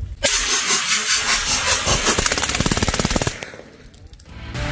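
Aero Precision EPC-9 9 mm pistol-calibre carbine fired in a rapid string to empty the magazine: a fast, continuous run of shots lasting about three seconds that stops abruptly.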